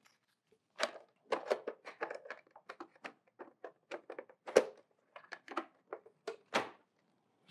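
Hard plastic clicks and knocks from handling a large toy spaceship and its action figure, irregular and quick, with a louder knock about four and a half seconds in and another near the end.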